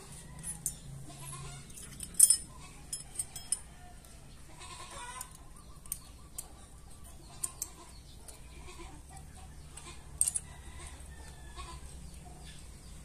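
Light metallic clicks and clinks as parts are handled and fitted around the timing chain and sprocket of a Yamaha NMAX crankshaft, over a low steady hum. The loudest clicks come about two seconds in and again near ten seconds. A short wavering animal-like call sounds in the background about five seconds in.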